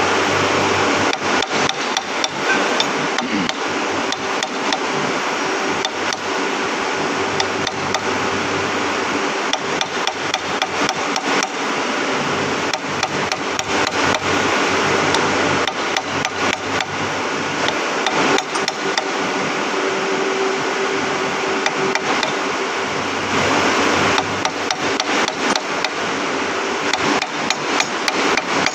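Hand hammer tapping repeatedly on metal, several quick blows a second in irregular runs, driving milling-machine spindle parts down into place. A steady machine hum runs underneath.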